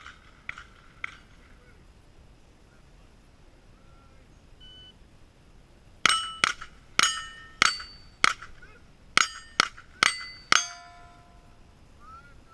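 A rapid string of .22 rimfire rifle shots on steel plate targets: about nine sharp cracks in four and a half seconds, starting about six seconds in, each leaving a ringing metallic tone. A few fainter pings come right at the start.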